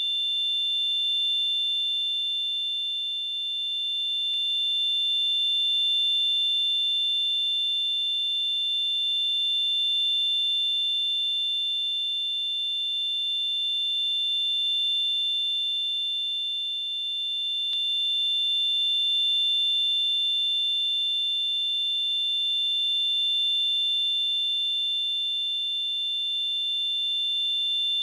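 Simulated tinnitus: a steady high-pitched ringing made of two close tones over a faint hiss, swelling and easing gently every four seconds or so.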